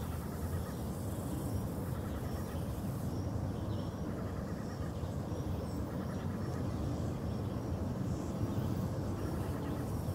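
Steady low outdoor background rumble with a faint high chirp repeating at an even pace, about every two-thirds of a second.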